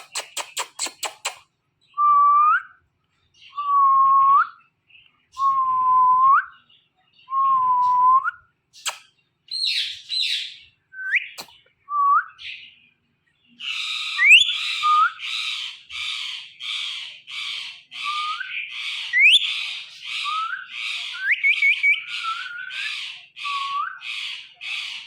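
Ringneck parrot calling: a quick rattle of clicks, then four short whistles about two seconds apart, each turning up in pitch at its end. Scattered chirps and rising whistles follow, and from about halfway a run of harsh screeches, about two a second, with whistled glides laid over them.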